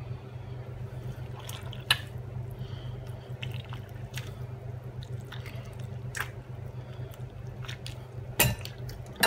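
Wet squelching of hands pressing milk-soaked bread stuffing into a raw chicken's cavity, with scattered short squishes and clicks, the loudest near the end, over a steady low hum.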